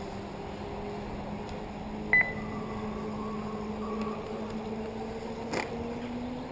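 A short, sharp electronic beep about two seconds in, over a steady hum with faint tones that slowly rise in pitch; a single click about five and a half seconds in.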